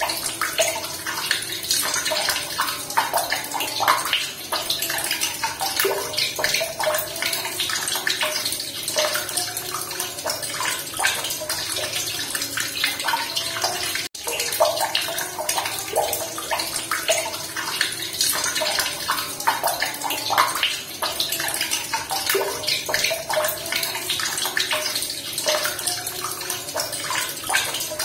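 Running water splashing and burbling steadily, a dense, even trickle with no pauses, and a momentary dropout about halfway through.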